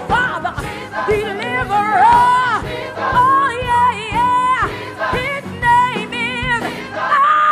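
Gospel music with singing: a voice holds notes with vibrato and slides between them over the accompaniment.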